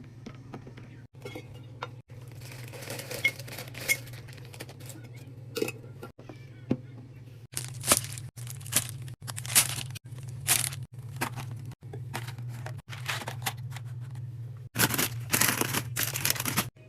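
Plastic snack packaging crinkling and being torn open in a run of short rustling bursts, over a steady low hum, with the sound breaking off for an instant several times.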